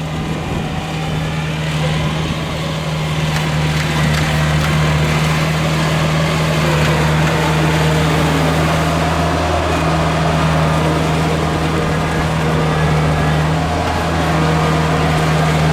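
Heavy diesel engine of a rice combine harvester running hard under load, a steady deep drone that grows louder over the first few seconds and then holds, as the machine strains to pull free of deep paddy mud.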